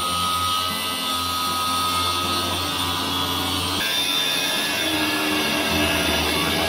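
Angle grinder cutting through the steel anchor bolts that fix a vending machine to its base: a continuous grinding of the cutting disc on metal with a steady whine, the sound changing character about four seconds in.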